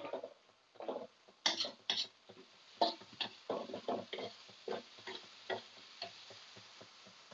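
Sliced shallots frying in oil in a wok, with a metal spatula scraping and clinking against the pan as they are stirred: irregular scrapes and clicks, a few sharper ones in the first three seconds, over a faint sizzle.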